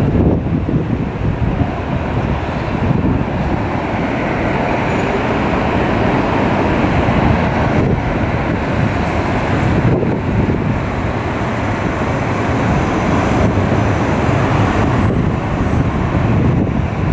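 Steady road traffic noise from cars passing, with wind rumbling on the microphone.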